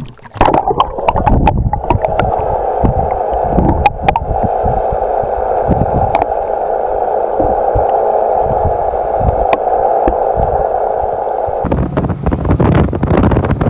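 Muffled underwater sound picked up by a submerged camera: a steady rushing hum of water with scattered low knocks and gurgles. About twelve seconds in it cuts sharply to wind buffeting the microphone on the boat.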